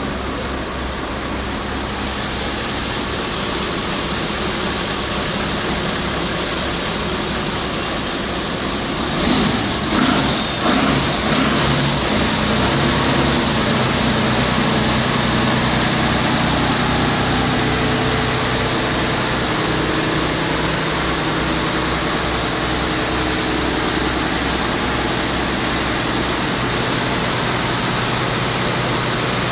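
Engine of a Wirtgen 1000C cold milling machine running steadily, with a few loud bursts about ten seconds in, after which a steady engine tone comes through more clearly.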